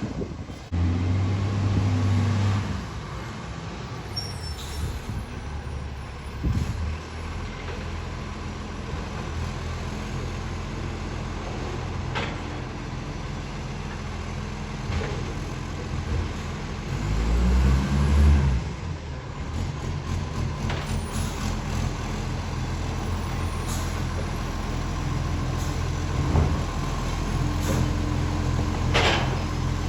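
Recycling garbage truck engine running steadily, revving up and back down twice: once near the start and once about halfway through. A few short, sharp sounds occur along the way. The truck has an exhaust leak.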